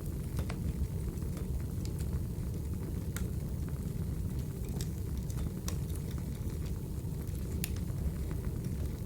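Crackling wood fire: a steady low rumble with sharp, irregular pops and snaps scattered through it.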